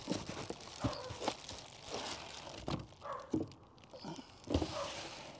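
Clear plastic bag crinkling and rustling, with irregular knocks and scrapes against cardboard, as a battery in its plastic wrapping is lifted out of a cardboard box.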